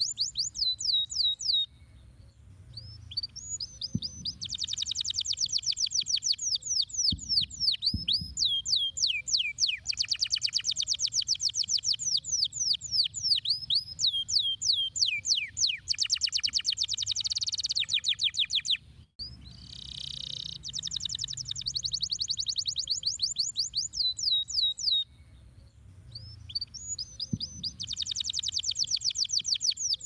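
Domestic canary singing: long, fast trills of high, rapidly repeated downward-sweeping notes, in phrases broken by short pauses.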